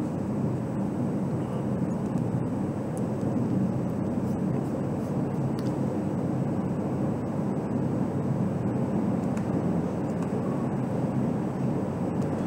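Steady low rumbling noise, even and unbroken, with no distinct events.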